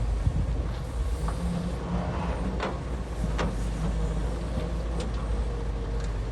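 Heavy diesel engine of an excavator running steadily while loading dirt, with about six sharp clanks and knocks scattered through.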